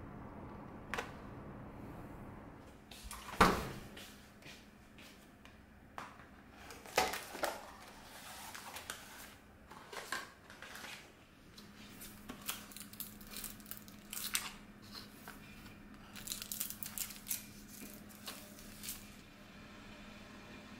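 Packaging handled at a counter: a paper cake box opened, with paper rustling and crinkling and scattered light clicks and knocks, the loudest a single knock about three and a half seconds in, over a faint steady hum.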